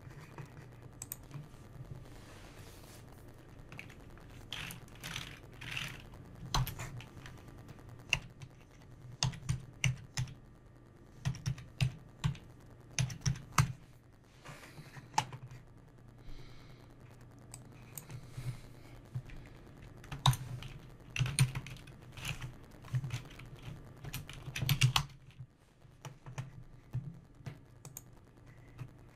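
Typing on a computer keyboard: irregular runs of keystrokes separated by short pauses, as a phone number and a name are keyed in.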